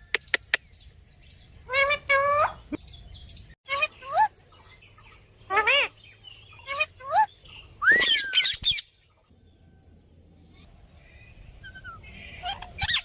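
A green parrot calling: a series of short chirps and squawks with gliding pitch, then one long swooping whistle about eight seconds in. It goes quieter for a few seconds before more short calls near the end.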